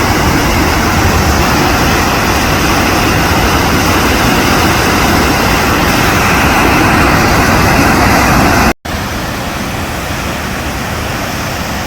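Large river waterfall rushing in a steady, loud, even roar of falling water. About nine seconds in it cuts out for a split second, then resumes a little quieter.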